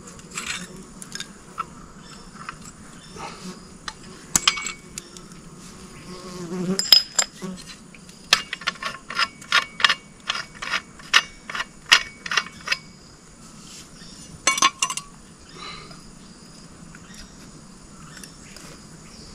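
Insects buzzing steadily, with sharp cracks and knocks: a few single ones, then a run of about two a second for several seconds midway.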